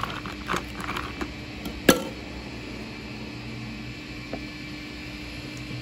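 Ice cubes dropped into a clear plastic blender cup: a few light clinks, then one sharp clack about two seconds in. A steady low hum runs underneath.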